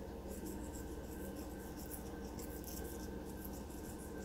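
Salt rubbed between the fingers and sprinkled over chicken pot pie filling: faint, quick scratchy rustles, over a steady faint hum.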